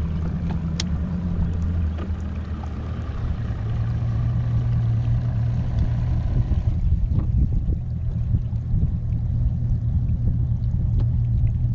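Mercury 250 Pro XS outboard motor idling, a steady low hum whose note shifts about two seconds in and then holds steady.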